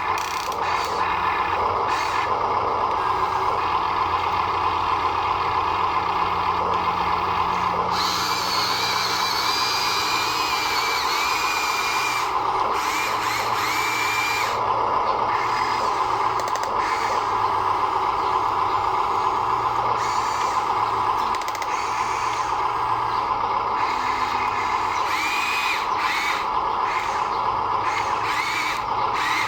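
Small electric motors and gearboxes of radio-controlled construction models running with a steady whine, with higher squeals that rise and fall coming and going.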